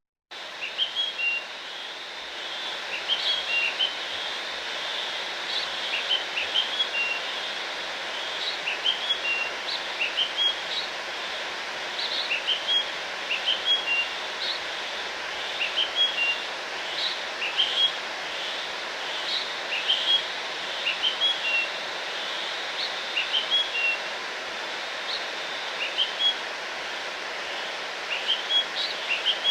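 Birds chirping: a short, high chirping phrase repeats every second or two over a steady background hiss.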